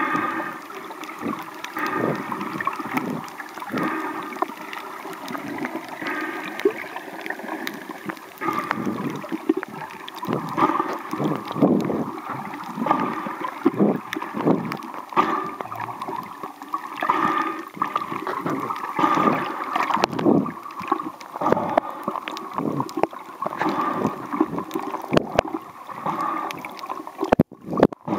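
Underwater water noise: irregular gurgling and sloshing surges against a waterproof compact camera's body while snorkelling, with a brief dropout near the end.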